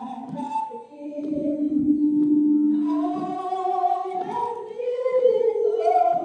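Women's voices singing together a cappella in long, held notes that glide between pitches.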